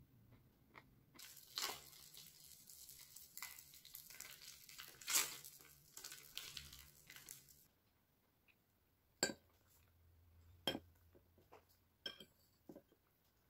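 Crinkling and rustling of a plastic food pouch being handled, for several seconds. Then a few sharp clinks of a metal fork against a small ceramic dish.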